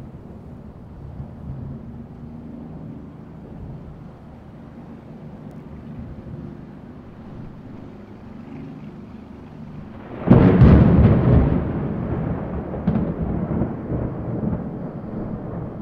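Thunder rumbling low and distant, then about ten seconds in a much louder, closer thunderclap cracks and rolls on, slowly fading.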